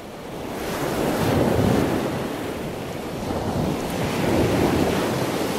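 Ocean surf breaking on a beach: a steady rush of waves that swells about a second and a half in and again near four and a half seconds, with wind buffeting the microphone.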